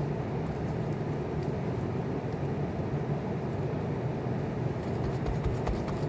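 Steady machine hum and hiss. Light crinkly clicks come in near the end, as plastic-gloved hands press mashed potato into a glass dish.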